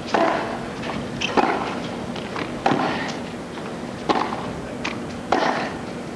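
Tennis rally: rackets striking the ball back and forth, five sharp hits about 1.3 seconds apart.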